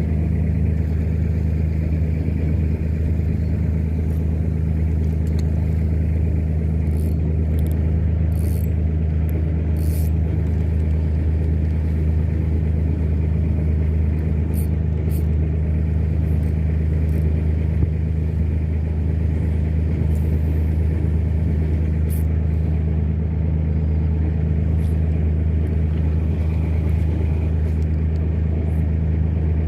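Fishing boat's engine running at a steady speed, a constant low drone that neither rises nor falls.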